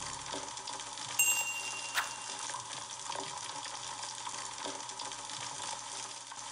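Chicken curry sizzling steadily in an open pressure cooker as its gravy cooks down. Two short metal clinks come about a second and two seconds in.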